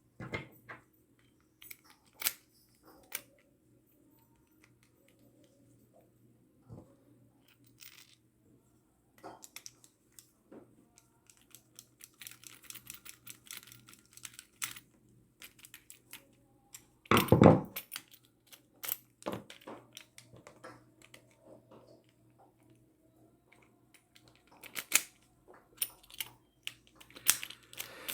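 Small metal clicks and taps as the parts of an ABUS 7140 padlock and tools are handled during reassembly, scattered and irregular, with one louder knock about two-thirds of the way through and a quick run of clicks near the end.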